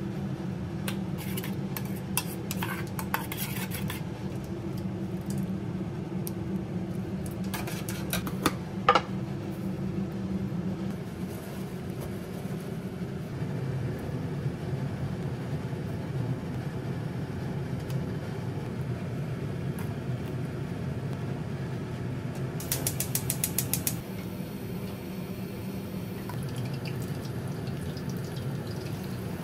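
Stainless-steel kitchenware clinking and a spoon stirring in a small metal bowl, as scattered clicks over a steady low hum, with a brief rapid rattle near the end.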